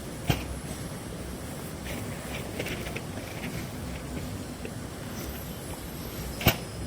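Glass vials being handled: two sharp taps about six seconds apart, with a few faint light clinks between, over steady background noise.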